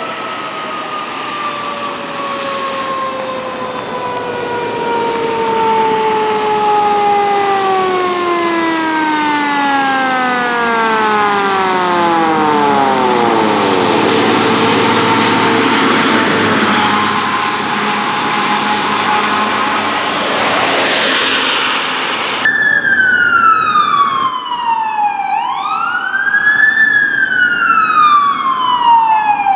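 A fire truck's siren winding down, its pitch sliding slowly lower over about thirteen seconds, followed by loud rushing vehicle noise. Near the end an electronic wail siren takes over, sweeping slowly down and quickly back up, about every four to five seconds.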